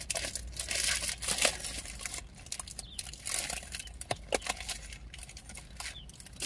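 A candy bar wrapper crinkling and rustling as it is handled and pulled open, in irregular crackles with a few sharper clicks.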